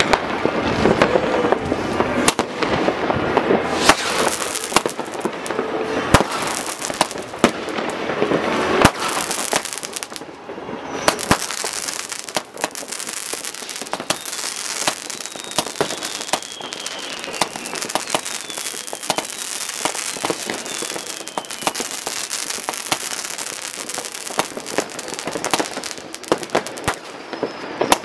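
Fireworks going off all over a town: rockets and firecrackers popping and crackling without a break, with many sharp bangs. The crackle is densest in the first nine seconds, and several falling whistles are heard in the second half.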